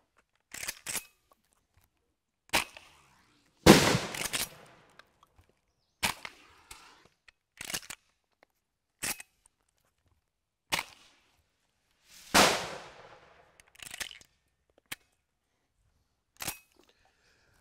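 Shotgun firing bird-scaring cracker shells ('aerial pest control' rounds that go bang like a little flashbang): a string of about a dozen sharp bangs at uneven intervals, from both the gun's reports and the crackers bursting. The two loudest bangs, about 4 and 12 seconds in, have longer rolling tails.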